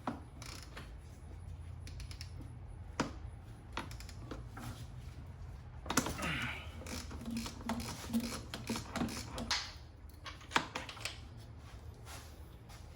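Metal hand tools clicking and clinking against the engine of a 2008 MINI Cooper S while its timing chain tensioner is worked loose. There are sharp single clicks, with a busier stretch of ticking in the middle.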